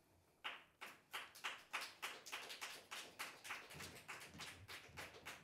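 A small group of people clapping at a few claps a second, fairly faint and slowly dying away.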